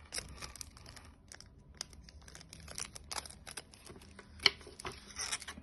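Handling noise of packaging: crinkling and rustling of a makeup brush's clear plastic sleeve, with scattered small clicks and one sharp click about four and a half seconds in.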